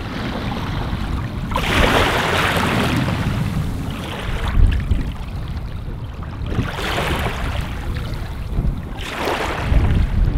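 Wind buffeting the microphone over choppy open water, with waves splashing and rushing up in four surges a few seconds apart.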